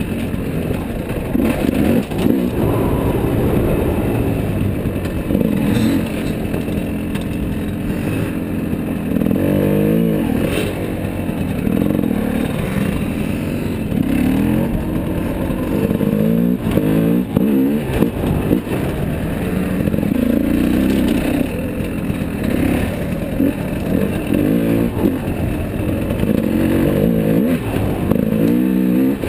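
Dirt bike engine, heard close up from the bike itself, revving up and down over and over, its pitch climbing and dropping every second or two under the throttle. Short knocks and clatter from the bike running over rough ground.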